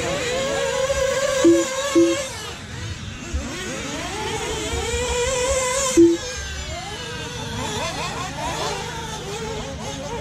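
Several radio-controlled buggies racing on a dirt track, their motors rising and falling in pitch as they speed up and slow down. Three short electronic beeps stand out, two close together about a second and a half in and one about six seconds in.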